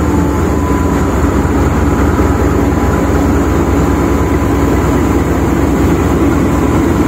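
Pakistan Railways AGE-30 diesel-electric locomotive engine running close by: a loud, steady rumble.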